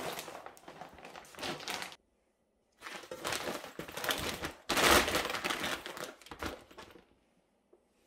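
Clear plastic zip storage bag crinkling and rustling as it is handled and opened, in two spells with a short silent gap about two seconds in. The rustle stops about seven seconds in.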